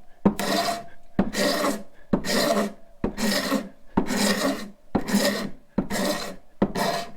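Hand wood scraper with a hooked, clamped blade pushed across a board in about eight even strokes, roughly one a second. Each stroke starts with a click and shaves the wood into fine shavings rather than dust.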